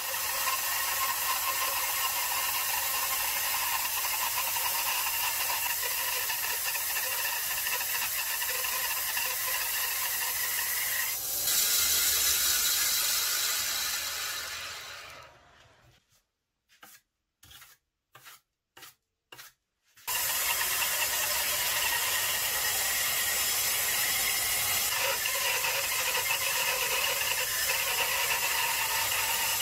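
Homemade plywood band saw, its motor on a frequency drive set to full speed, cutting through a thick slab of stump wood: a steady whining hiss of blade and wheels in the cut. About halfway through, the sound fades out for a few seconds, leaving only a few faint short ticks, then the steady sawing returns.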